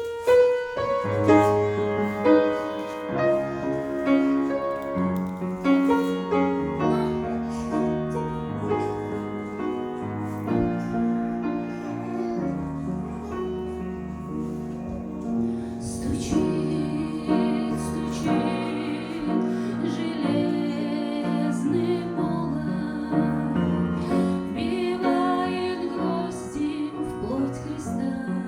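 A piano-led song: piano chords open it, and a female voice comes in singing at about the halfway point.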